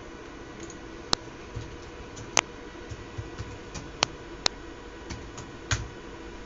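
Scattered sharp clicks from a computer's keyboard and mouse being worked: about five louder clicks among fainter ticks, spaced irregularly.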